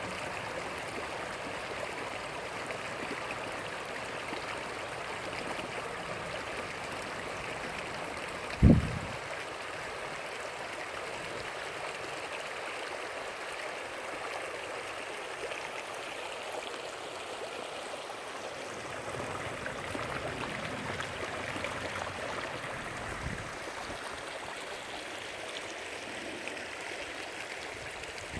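Rain-fed creek tributary running with a steady rush of water after overnight rain. A single loud, low thump about nine seconds in, and a fainter one later.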